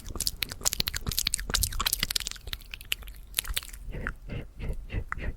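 ASMR mouth sounds: a fast run of wet tongue and lip clicks and pops, densest for the first three seconds or so and then sparser.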